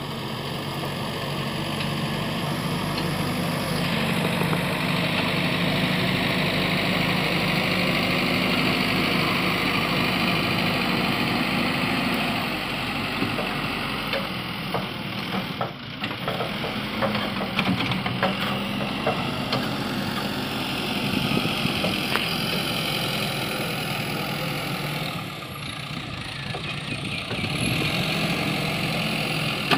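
Bobcat B900 backhoe loader's diesel engine running under changing load as the machine pushes brush and soil, its loudness rising and falling. Around the middle there is a run of short knocks and cracks.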